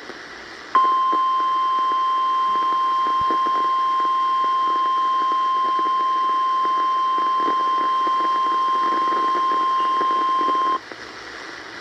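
NOAA Weather Radio warning alarm tone: a single steady high tone of about 1050 Hz, held for about ten seconds over radio hiss. It starts about a second in and cuts off abruptly near the end. It signals that a severe thunderstorm warning is about to be broadcast.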